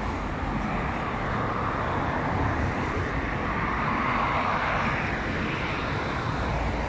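Road traffic on a town road: cars and a van driving past with steady tyre and engine noise, swelling around the middle as vehicles go by.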